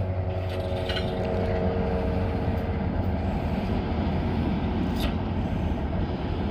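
Motor vehicle engine and road noise: a steady low rumble with an engine tone fading away near the start. One faint click comes about five seconds in.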